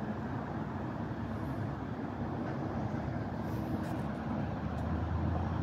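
Road traffic rumbling steadily, with a deeper low drone growing louder near the end.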